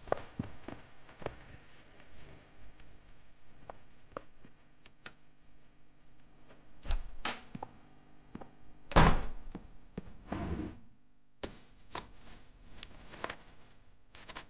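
Quiet sound effects of someone moving stealthily: soft scattered footsteps and knocks, a louder thump about nine seconds in, then a run of small clicks and rustles as papers are handled. A faint high-pitched whine runs underneath and stops at about the time of the thump.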